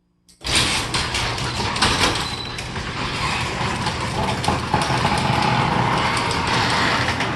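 Garage door opener starting suddenly about half a second in and running steadily as it moves the door, with frequent clicks and rattles from the door and drive.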